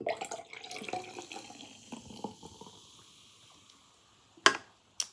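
Beer poured from a can into a glass, splashing and fizzing as the glass fills and foams, fading out after about three seconds. Two sharp knocks near the end.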